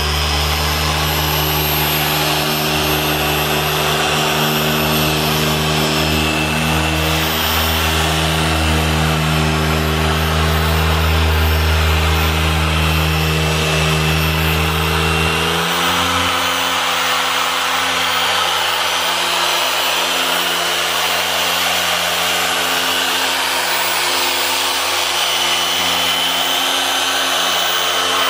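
Harbor Freight dual-action polisher running steadily at about speed 4.5, its 4-inch foam pad polishing a yellowed plastic headlight lens under medium pressure. Its hum changes in tone about halfway through.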